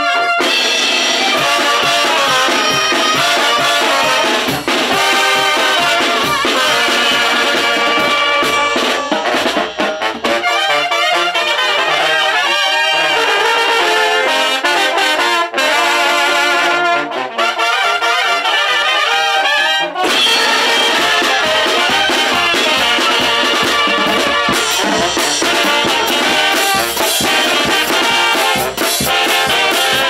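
Oaxacan banda de viento (wind band) playing: clarinets, saxophones and trombones over drums. The lower parts thin out for a stretch in the middle, and the full band comes back in about two-thirds of the way through.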